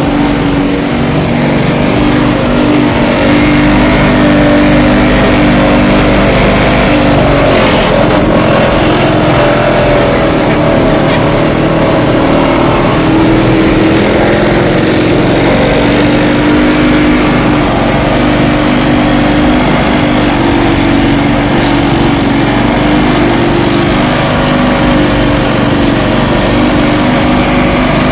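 Small engine of a grass chopping machine (chaff cutter) running steadily under load, its pitch shifting a little now and then.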